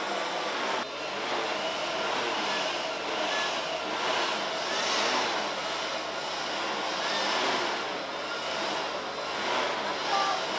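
Battery-powered handheld blower running steadily, a constant rush of air.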